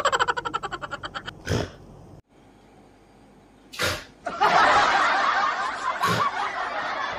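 A quick rippling snicker, about nine pulses a second falling in pitch, then after a pause a long rasping noise lasting about three seconds. Short, sharp sounds recur about every two seconds.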